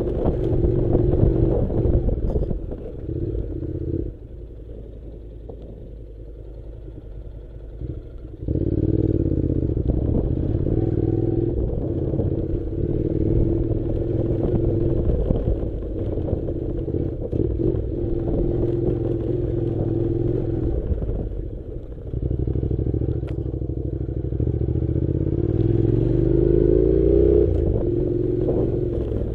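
Honda NC700's parallel-twin engine running under way on a rough dirt track, with rattles and knocks as the bike goes over the stones. About four seconds in the engine drops to a quieter note, picks up again a few seconds later, and near the end its pitch rises as it accelerates.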